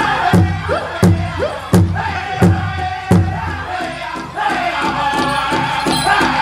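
Powwow drum group singing a chicken dance contest song: a big drum struck in a steady beat under high-pitched voices. The strikes are heavy and spaced about every 0.7 seconds at first, then come lighter and quicker from about four seconds in.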